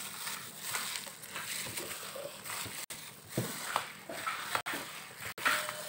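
Yeast donut dough being kneaded by a plastic-gloved hand in a plastic bowl: soft, irregular squishing and slapping of the dough against the bowl.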